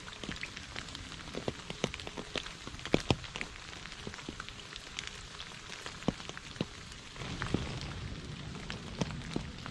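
Rain falling on a puddle and wet leaves: a steady hiss with separate drops landing sharply in the water at irregular intervals. The hiss grows fuller about seven seconds in.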